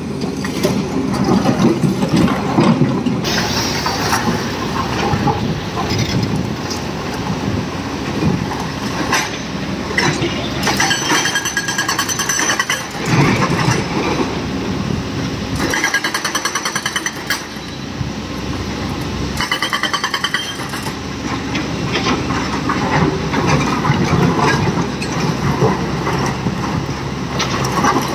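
Heavy diesel machinery running steadily at a truck-loading site, with three bouts of rapid rattling partway through.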